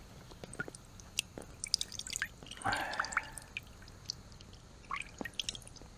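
Irregular drips and small wet ticks of water, with a brief louder rustle about halfway through.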